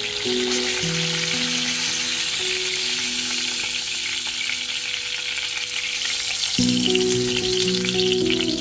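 Chicken thighs sizzling in hot oil in a frying pan, a steady crackling fry, under soft background music.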